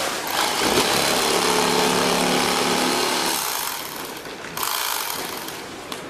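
Handheld electric bag-closing sewing machine running as it stitches shut the top of a filled woven compost bag: a steady motor hum for about three seconds, then a shorter, noisier second run about four and a half seconds in.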